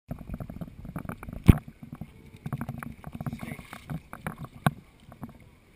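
Irregular clicks and knocks, with one loud knock about a second and a half in and a few sharper ones near the end.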